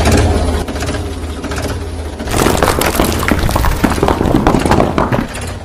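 Rocks sliding off a tipped toy tractor trolley, clattering and splashing into muddy water for about three seconds, starting about two seconds in. A steady low engine drone runs underneath.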